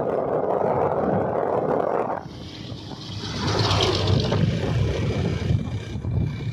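Road noise from a moving vehicle: wind buffeting the microphone over a low engine rumble. The loud rushing drops off about two seconds in, leaving an uneven rumble with some hiss.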